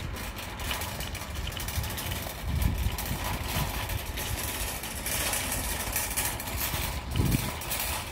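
Road traffic with a tanker truck going by, heard as a steady hiss with low rumbling.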